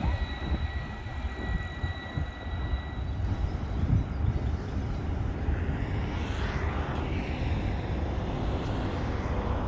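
A steady low rumble of road traffic with wind on the microphone. A thin high whine stops about three seconds in, and a hiss swells and fades around six to seven seconds in.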